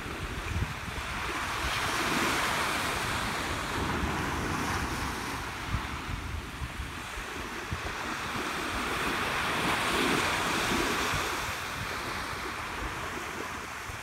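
Small ocean waves breaking and washing up a sandy beach, the hiss of the surf swelling twice, a couple of seconds in and again past the middle. Wind buffets the microphone with an uneven low rumble underneath.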